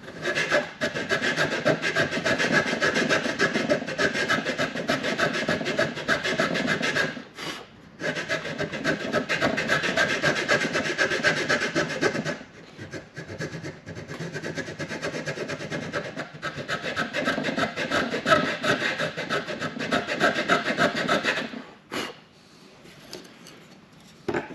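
Round file rasping quickly back and forth on the coped end of painted wooden trim, cleaning the cut back to the pencil line. The strokes come in long runs with a short pause about seven seconds in and a softer stretch in the middle, and they stop a couple of seconds before the end.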